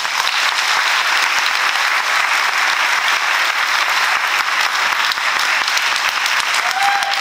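Audience applauding steadily, a dense sustained clapping that fills the hall. A faint pitched call rises over it near the end.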